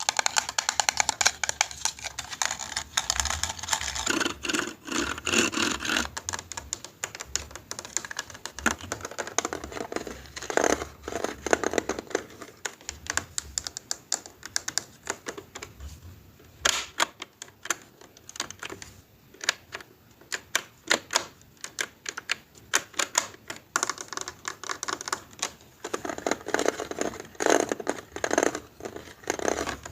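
Rapid, close-up clicking and tapping of small plastic buttons and keys, like typing, in uneven runs that thicken and thin out.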